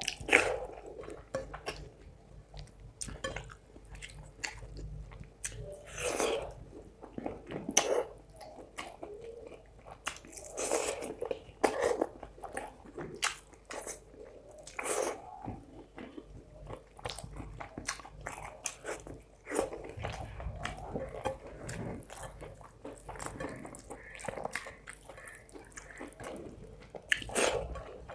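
A person eating fish curry and rice close to the microphone: irregular wet chewing and mouth sounds, with short clicks and smacks.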